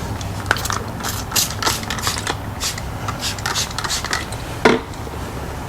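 Hand cleaning of the truck's dirty lower body panel: a run of short, irregular scuffs and clicks, with one louder knock about three-quarters of the way through.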